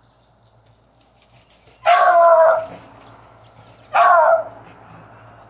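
A dog barking twice, two loud, drawn-out barks about two seconds apart, the first a little longer than the second.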